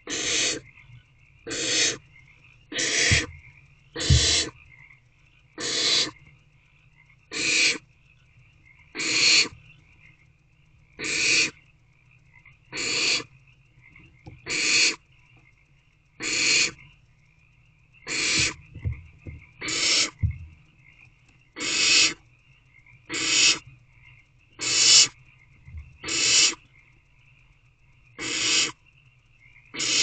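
Barn owlets giving harsh rasping hisses, one a little under every two seconds, each about half a second long: the 'snoring' begging call of barn owl chicks.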